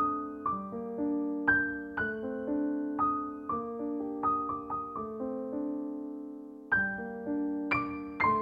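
Background solo piano music: slow, gentle notes about two a second, with one chord left to fade for over a second before the notes start again near the end.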